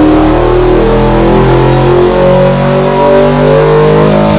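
Ford Cleveland V8 of about 393 cubic inches on LPG liquid injection, running loud and steady on an engine dynamometer, its pitch wavering slightly.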